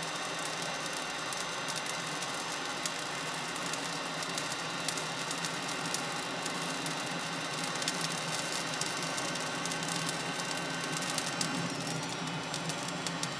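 Electric hot-air charcoal lighter blowing a steady hiss into lump charcoal, with small crackles as the charcoal throws sparks.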